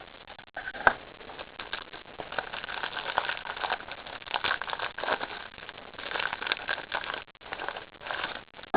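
Trading-card box and its packaging being torn open by hand: irregular crinkling and tearing, with a sharp snap about a second in.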